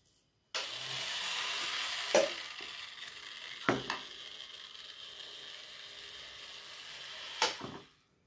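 Small 45 rpm DC gear motor switched on about half a second in, whirring steadily as it drives plastic spur gears and a wooden wing linkage, with three sharp knocks along the way. It cuts off shortly before the end.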